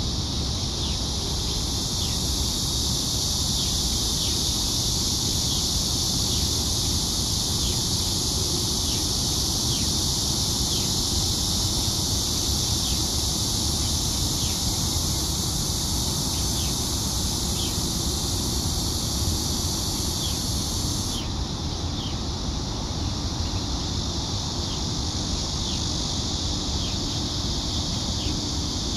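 Outdoor ambience: a steady high hiss with short falling chirps repeating about once a second, over a low wind rumble on the microphone.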